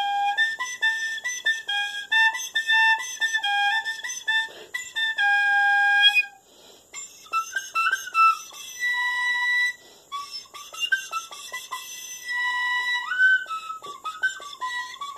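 A small flute- or whistle-type wind instrument played by someone trying it for the first time: a run of short notes, a brief break about six seconds in, then higher notes that slide and bend.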